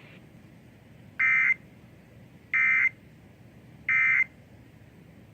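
Emergency Alert System end-of-message signal: three short bursts of SAME digital data tone, about one and a half seconds apart, marking the close of the alert, over faint radio hiss.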